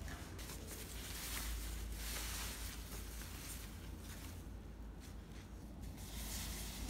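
Thin white wrapping rustling and crinkling as it is pulled off an acoustic guitar, swelling about two seconds in and again near the end.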